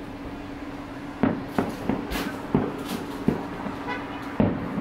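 Fireworks shells bursting: a string of sharp bangs and pops, irregularly spaced, starting about a second in.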